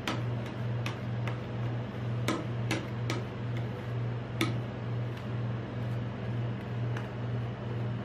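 Metal spatulas scraping and tapping on the steel freezing plate of a rolled ice cream machine as the frozen ice cream is spread and scored, giving several sharp clicks at irregular intervals. A steady low hum runs underneath.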